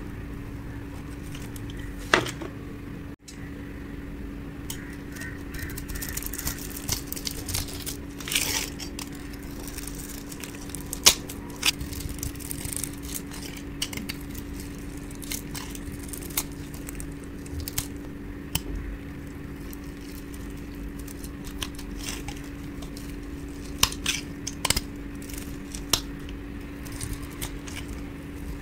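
Utility-knife blade cutting into dry bars of soap, shaving off small cubes and flakes with irregular crisp crunches and crackles. A steady low hum runs underneath.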